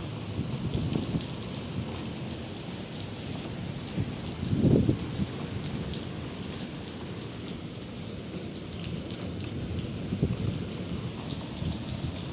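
Heavy rain falling steadily, with many small drop ticks, and a brief low rumble about five seconds in.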